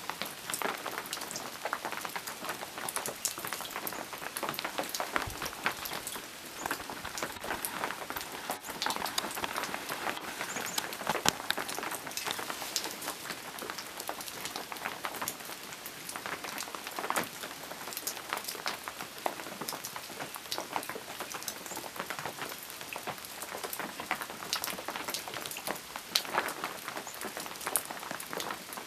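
Steady rain falling, with many separate drops striking close by, a few of them sharper and louder.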